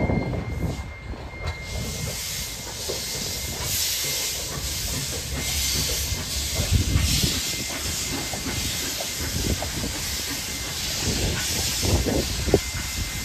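Queensland Railways C17-class 4-8-0 steam locomotive 974 hauling its train, steam hissing in pulses that swell and fade about once a second over the low rumble of the moving coaches.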